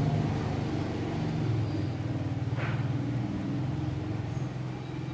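A steady low mechanical rumble, like a motor running, with a brief rising squeak about two and a half seconds in.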